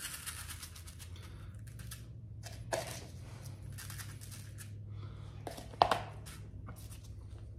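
Dry salt-and-spice cure being spooned out of a plastic container and sprinkled onto paper: light scattered ticks and rustles, with a sharper clack just before six seconds, over a steady low hum.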